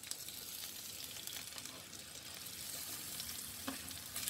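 Thinly sliced onions sizzling as they fry in hot oil in a kadhai, the sizzle starting suddenly as they go in, with a few light clicks of stirring.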